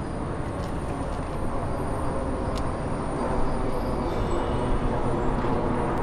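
Steady city traffic noise, a low even rumble of many distant cars.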